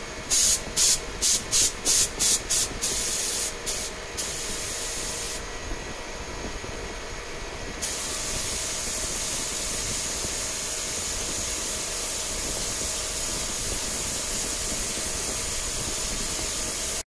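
Gravity-feed air spray gun spraying paint, a high hiss of air. It comes first in about eight short, quick bursts, then in a few longer ones, then as one steady hiss held from about eight seconds in until it cuts off suddenly near the end.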